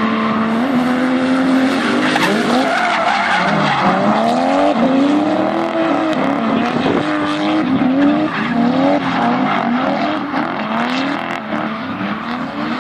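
Two drift cars sliding in tandem: engines held at a steady high rev for the first couple of seconds, then revving up and down about once a second as the throttle is worked. Spinning, sliding tyres add a constant hiss and squeal.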